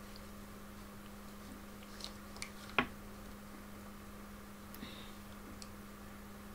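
Quiet room with a steady low electrical hum and a few small handling clicks and taps, the sharpest about three seconds in.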